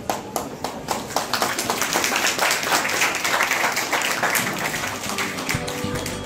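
A small group applauding by hand, starting with a few scattered claps and quickly filling out into dense clapping.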